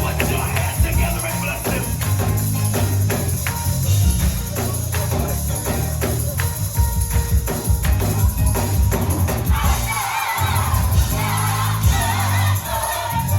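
Live gospel band music: an upbeat groove with a heavy bass line, drums and tambourine, with voices coming in over it in the last few seconds.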